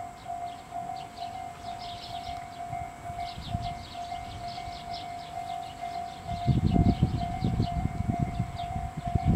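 Level-crossing alarm ringing with a steady, evenly pulsing tone as an MRT300 diesel railcar approaches, with high rhythmic chirping over it. About six and a half seconds in, a loud low rumble comes in and becomes the loudest sound.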